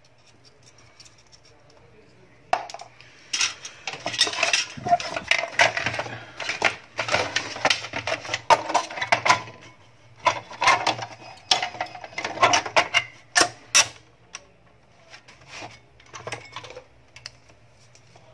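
Plastic and metal parts clattering and clicking as an inverter's circuit board, wiring and cooling fan are handled and fitted back into its plastic case. A dense run of quick clicks and knocks starts about two and a half seconds in and thins out to scattered clicks near the end.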